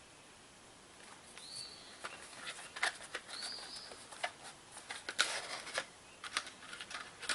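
Strike-anywhere matches scraped again and again against a striking surface without lighting, a series of short sharp scrapes with one longer scrape a little past the middle. A bird calls a few times in the background.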